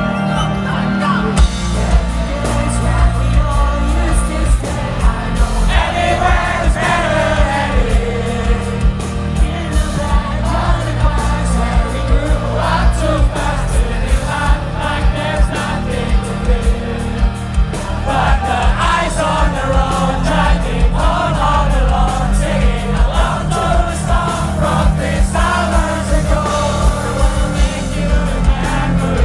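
Live pop-punk band playing loudly, with drums, bass and guitars under sung vocals that come in about six seconds in, recorded from the audience.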